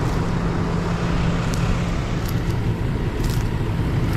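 Fendt 1050 tractor's large six-cylinder diesel engine running steadily at an even speed.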